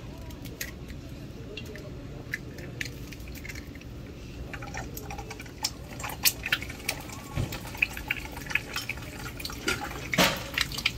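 An egg frying in hot oil in a small nonstick wok, crackling and spitting, the pops growing busier after about five seconds. A louder sizzle comes near the end as a mound of cooked rice goes into the pan.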